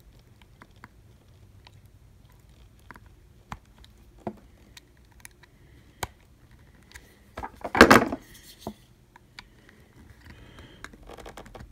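Small knife blades prying at the seam of a bloated Pocket Juice power bank's plastic case: faint scattered clicks and scrapes of metal on plastic. A louder, rough crunching scrape comes about eight seconds in.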